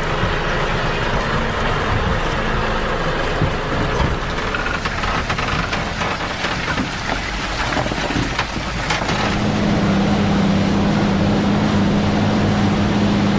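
Heavy truck engine running over a rough, noisy background, with a steady low drone that settles in about nine seconds in.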